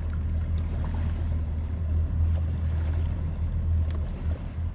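Twin Mercury Verado 300 V8 outboard engines idling as the boat creeps along, a steady low hum.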